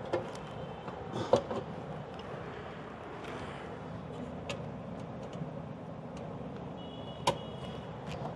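A few light clicks and knocks from the gas stove's sheet-metal frame and burner fittings being handled, over a steady low background rumble.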